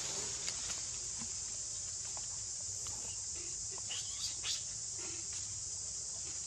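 Steady, high-pitched drone of an insect chorus, with a few brief faint chirps about four seconds in.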